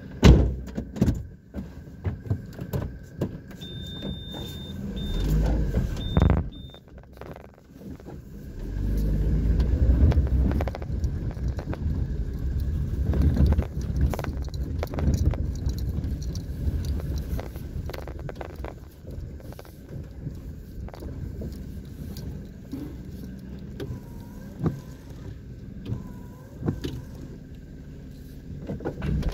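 Car driving slowly over a rough dirt track, heard from inside the cabin: a low rumble of tyres and engine that swells for several seconds in the middle, with frequent knocks and rattles as it bumps along. A few short high beeps sound about four seconds in.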